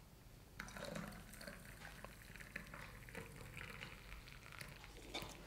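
Boiled milk poured from a steel saucepan through a plastic strainer into a steel tumbler of coffee decoction: a faint, steady trickle with a few light clicks, starting about half a second in.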